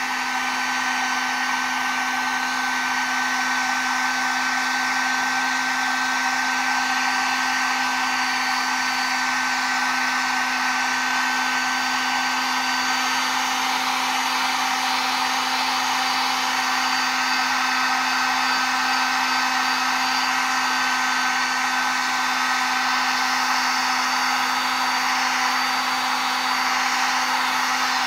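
Cheap Harbor Freight heat gun running steadily on its high setting: an even rush of blown air with a constant low hum and a higher fan whine.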